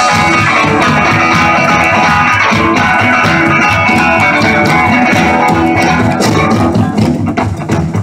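Live rock band playing an instrumental passage: guitar over bass and drum kit. The held guitar tones drop away about six seconds in, leaving a choppier, drum-led sound.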